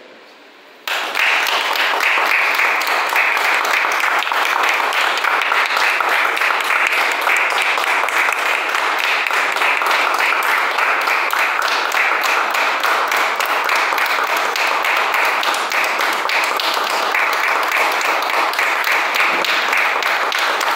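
Audience applauding steadily, the clapping starting suddenly about a second in.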